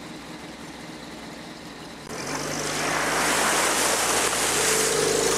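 ARO off-road vehicle's engine running at low speed, then about two seconds in a loud, steady rush of water as the vehicle drives into a stream ford and spray sheets up against its side.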